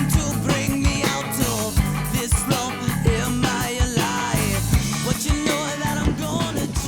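Rock intro music with a steady drum beat, electric guitar and singing.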